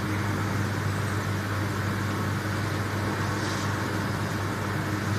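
Electric hair clippers buzzing steadily as they cut and taper the hair at the nape of the neck.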